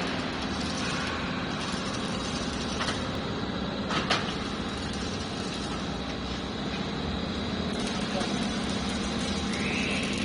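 Steady din of running industrial machinery: a constant low hum under an even noise, with one sharp knock about four seconds in.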